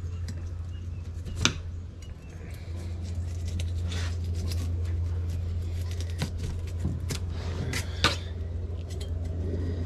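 About half a dozen sharp scrapes and knocks of a fillet knife working over a margate's thick scales on a cleaning table. The loudest comes about a second and a half in, and another near the end, over a steady low hum.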